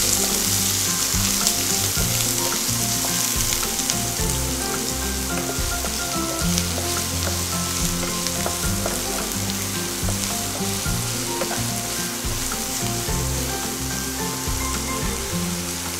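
Chopped onions frying in hot oil in a nonstick kadhai, a steady sizzle, with a spatula stirring and turning them through the pan.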